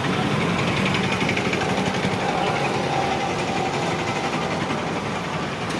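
Vehicle engine idling with a rapid, even rattle.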